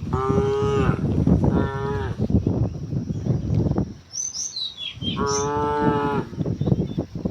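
Cows mooing: three fairly high, steady moos, the first two short and close together, the last a little longer, over a dense low clatter. A bird gives a quick falling chirp between the second and third moo.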